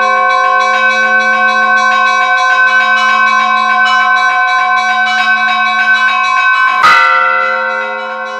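Church bells ringing: a quick run of strikes on several small bells over the steady hum of larger ones. About seven seconds in comes one louder clang, after which the ringing dies down briefly.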